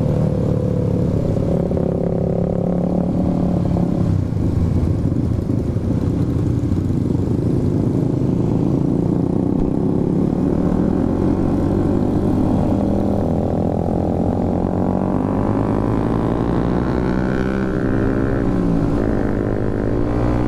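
Motorcycle engine running while riding, over low road and wind rumble; about halfway through its pitch starts climbing steadily as it accelerates.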